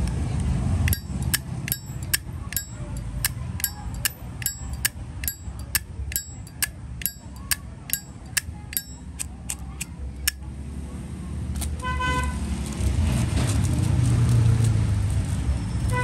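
Zippo lighter's hinged lid flicked open and snapped shut over and over: about two dozen sharp metallic clinks, each with a short ring, that stop about ten seconds in. Near the end a car horn toots briefly over a low traffic rumble.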